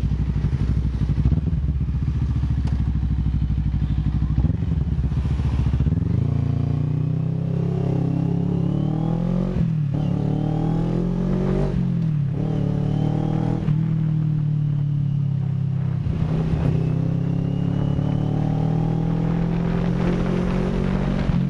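Motorcycle engine running at low revs, then pulling away about six seconds in. Its pitch climbs, drops back sharply at each upshift (about three times), and then keeps rising slowly as the bike gathers speed.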